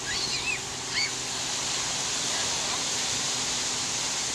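Steady wash of ocean surf, with a few short bird chirps in the first second.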